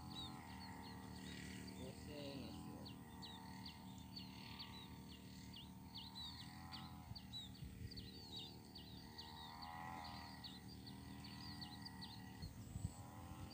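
Faint outdoor ambience of small birds chirping: many short high notes that slide down in pitch, several a second. Under them runs a low steady hum and a fainter distant sound that slowly rises and falls in pitch.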